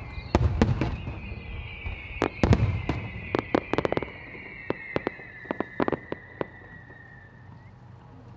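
Rapid-fire 7-go aerial firework shells bursting: a quick series of deep booms and sharp bangs, densest in the first four seconds, then thinning to scattered bangs that stop about six and a half seconds in.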